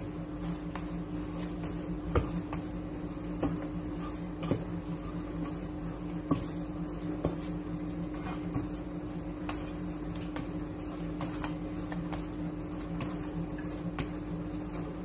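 Hands kneading squash and glutinous rice flour dough in a stainless steel bowl, giving scattered soft knocks and taps against the metal, the sharpest about 2, 4.5 and 6 seconds in. A steady low electrical hum runs underneath.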